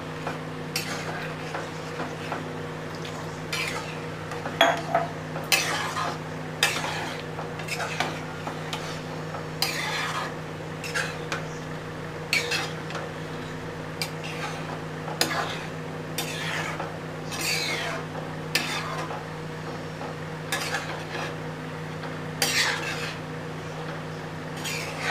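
A ladle stirring thick chickpea curry in a kadhai, scraping and knocking against the pan in short strokes about once a second, over a steady low hum.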